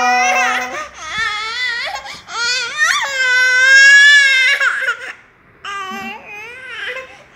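Toddler crying and wailing in a tantrum, in several bursts, the longest and loudest a held wail about three to four and a half seconds in.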